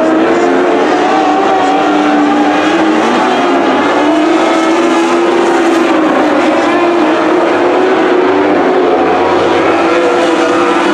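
Lightning sprint cars racing on a dirt oval: several high-revving motorcycle-type engines run loud and steady together, their pitches wavering slightly as the pack goes around.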